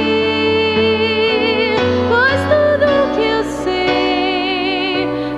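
Slow Portuguese worship song: a woman singing long held notes with vibrato over a soft band accompaniment.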